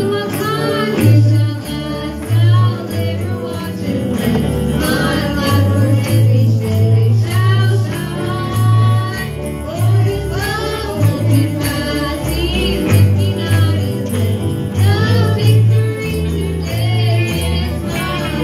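Live gospel worship music: a group of singers over a band with a steady, pulsing bass line and a tambourine jingling along.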